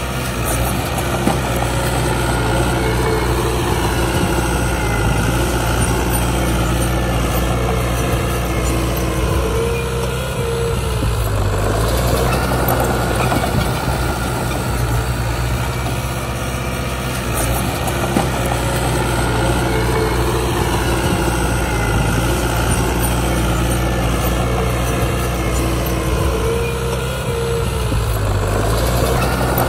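Heavy diesel earthmoving machinery running steadily, its engine note rising and falling in a repeating cycle about every eight seconds as it works under load. A brief rushing surge comes twice, about twelve seconds in and near the end.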